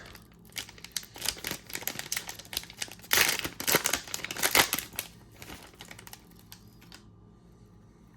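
A trading-card pack wrapper being torn open and crinkled by hand, with quick clicking and crackling that is loudest about three to five seconds in, then dies away.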